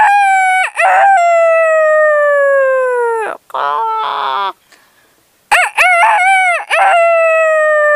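A woman imitating a rooster's crow with her voice, twice. Each crow is a few short notes followed by one long note that slowly falls in pitch, with a brief lower call between the two crows.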